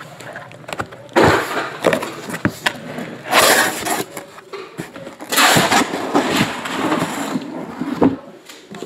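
Cardboard shipping case being opened and handled by hand: several bouts of scraping and rustling cardboard, with a few sharp knocks and clicks between them.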